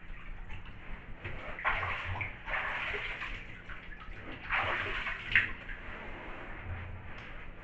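Bathwater sloshing and splashing as a person kneeling in a partly filled tub moves about in it, with three louder surges of splashing about two, three and five seconds in.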